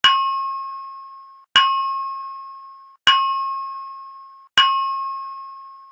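Fire alarm voice-evacuation system's chime alert tone: four bell-like strikes about one and a half seconds apart, each ringing down before the next. It is the alert signal that precedes each recorded evacuation announcement.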